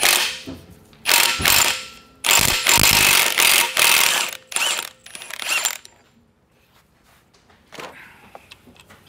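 Cordless impact wrench hammering in several bursts, one of them about two seconds long, as it removes the 34 mm pinion nut from the pinion yoke of a Nissan M226 rear differential.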